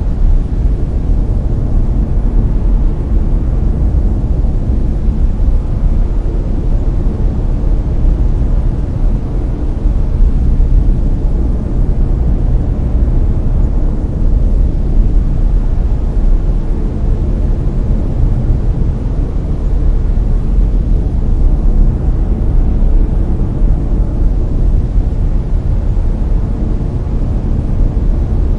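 Steady brown noise: an even, deep rushing hiss weighted toward the low end, with no changes.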